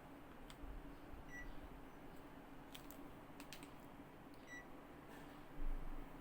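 Panasonic mini split air conditioner beeping twice, short single beeps about three seconds apart, as its indoor unit acknowledges remote-control commands. Faint clicks come in between, over a steady low hum.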